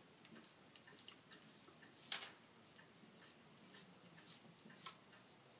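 Faint crinkling and scattered small ticks of heavy-duty aluminum kitchen foil being pressed and rolled down by fingers onto a tinfoil phonograph's mandrel, with one louder crackle about two seconds in.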